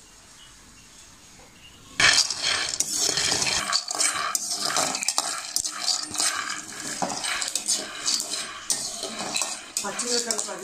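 A metal spatula stirring and scraping raw peanuts around an aluminium kadai as they dry-roast, the nuts rattling and clicking against the pan. It starts about two seconds in, after a short quiet moment.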